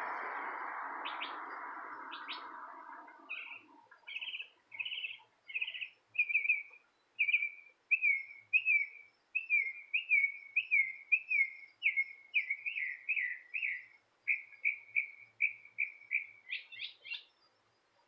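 A songbird singing a long series of repeated short down-slurred whistled notes, about two a second, finishing with a few quicker higher notes. A rushing noise fades out during the first few seconds.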